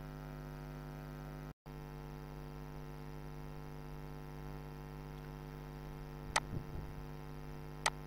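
Steady electrical mains hum with a stack of overtones. It cuts out for an instant about one and a half seconds in. Near the end come two sharp clicks about a second and a half apart.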